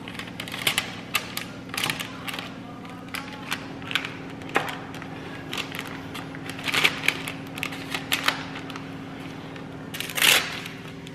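Baking paper crinkling and being trimmed with scissors: a run of short, irregular crisp rustles and snips, with a louder crackle near the end.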